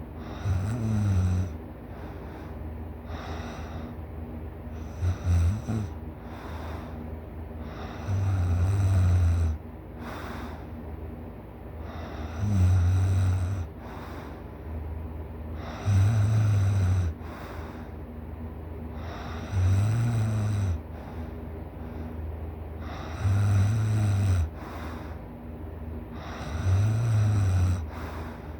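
A person snoring loud and hard in deep sleep: about eight low, roughly one-second snores, one every three and a half seconds or so, in a steady rhythm.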